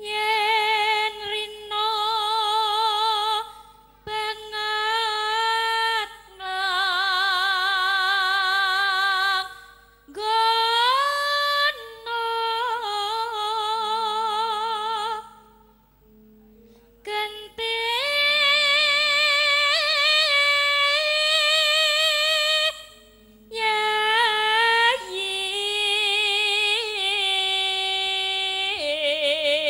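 A pesindhen, a female Javanese singer, singing into a microphone. She holds long, wavering notes in phrases broken by short pauses.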